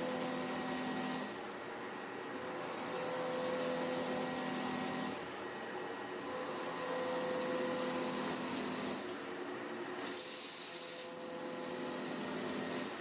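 Klingelnberg C29 bevel gear cutting machine dry-cutting a bevel gear without coolant: a steady machine hum under the hiss of the cut. The sound dips briefly about every four seconds, and a louder hiss comes about ten seconds in.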